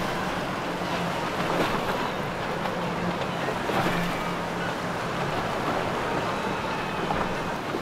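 Boat engine running with a low steady hum under the wash of water and wind noise on the microphone.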